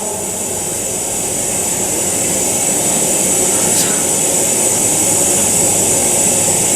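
Steady rushing noise drone from the performance's soundscape, slowly growing louder.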